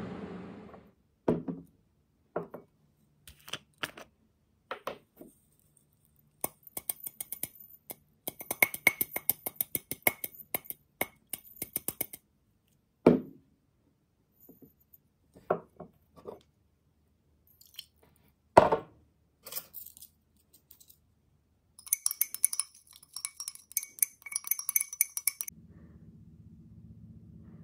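Glass beaker being handled with iron(II) sulfate crystals and then water: scattered sharp knocks and runs of quick light clinks, with a dense run of ringing glass clinks near the end as the solution is mixed.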